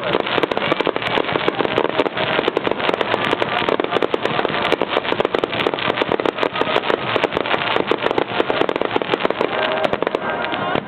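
Fireworks going off in a rapid, unbroken barrage of bangs and crackles, many reports a second, as in a festival finale.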